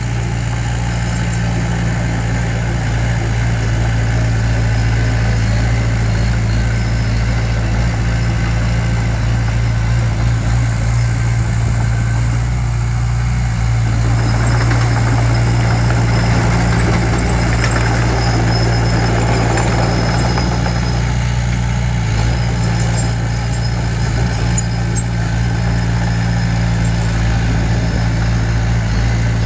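Diesel engine of heavy construction machinery running steadily with a strong low hum. It gets a little louder and noisier about halfway through.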